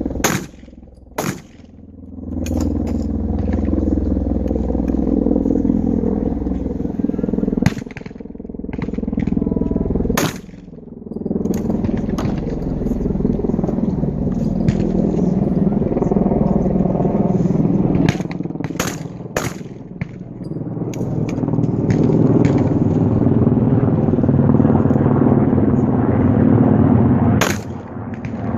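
Shotgun shots on a trap range: several sharp cracks at irregular intervals, including a quick pair of shots about two-thirds of the way through, over a steady, fluctuating low rumble.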